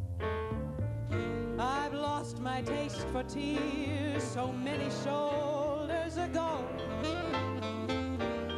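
Live music from a singer and a small band: a steady bass line underneath, with a melody line with wide vibrato coming in about a second and a half in.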